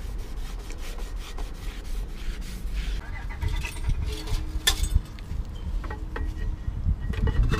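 Gloved hand with a cloth rubbing over a new rear brake rotor as it is wiped clean, then light metal clicks and clinks as the brake caliper is handled and seated over the rotor, with one sharper click about halfway through.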